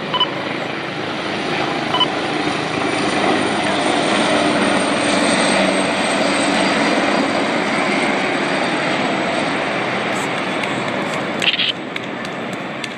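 Two helicopters flying low past, their rotor and engine noise growing louder as they come close, loudest midway, then easing off toward the end as they head away.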